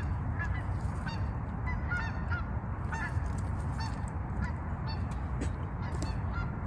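Geese honking over and over, short curved calls scattered throughout, over a steady low rumble.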